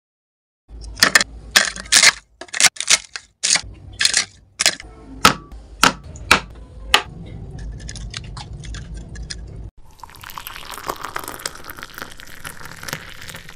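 Close-up food-preparation sounds: about a dozen sharp clicks and taps over the first several seconds, then fainter ticking, then a steady crackling hiss that starts about ten seconds in.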